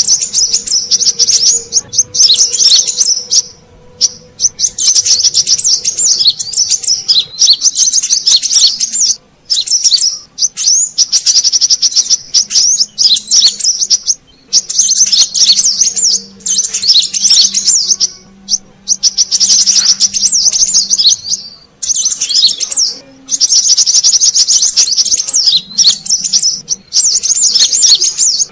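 Brown-throated sunbird (kolibri kelapa) song played as a bird lure: fast, high chattering chirps in bursts of two to four seconds, separated by brief breaks.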